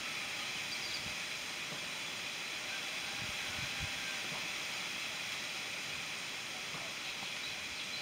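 Steady outdoor hiss with a few faint, scattered chirps, and some low bumps about halfway through.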